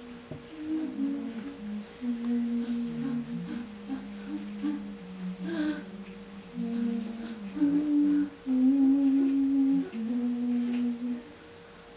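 People humming a slow tune in long held notes that step from pitch to pitch, at times two voices at once, with a steady higher tone held alongside throughout. The humming is loudest in the second half.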